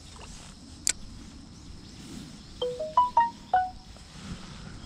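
A quick run of five short chime-like struck notes, stepping up in pitch and then back down, with a sharp click about a second before them.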